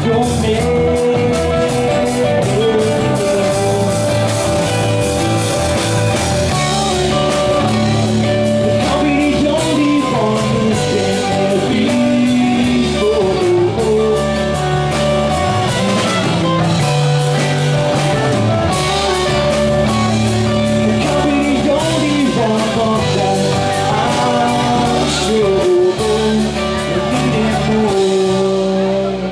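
Live rock band playing a song: a lead vocalist singing over strummed acoustic guitar, electric guitars and a drum kit keeping a steady beat.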